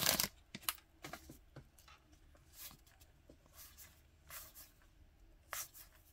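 Baseball trading cards being slid one at a time off the stack while going through a freshly opened pack: soft, faint swishes about every second. A brief crinkle of the pack wrapper at the very start.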